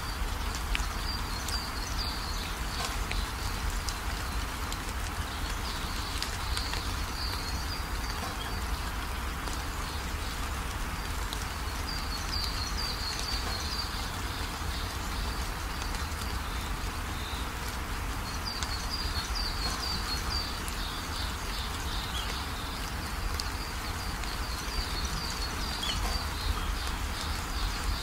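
Steady background hiss with runs of short, high chirps every few seconds, like an insect calling. Faint clicks come from fingers handling rice and fish on a steel plate.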